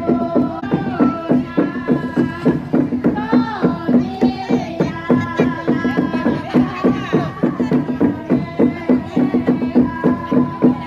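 Women's voices chanting the melodious pa'katia song of the Toraja funeral dance, several voices together over a regular drumbeat of about three beats a second, with a steady low tone underneath.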